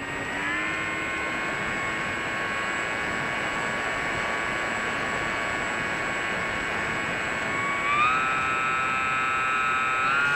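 Onboard sound of an FPV model plane's electric motor and propeller: a steady, multi-toned whine that rises in pitch about half a second in and again near 8 seconds as the throttle is opened.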